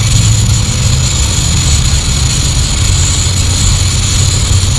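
Petrol (liquid-fuel) camping stove burning at full strength after priming, its flame now turned from yellow to blue: a loud, steady rushing noise with a low rumble.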